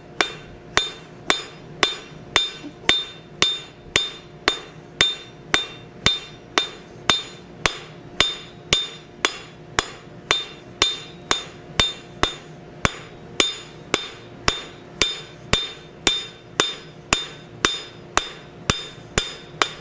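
Cross peen hammer striking red-hot steel on the anvil in a steady, even rhythm of two to three blows a second, drawing the oak leaf blank out to width. Each blow leaves the anvil ringing.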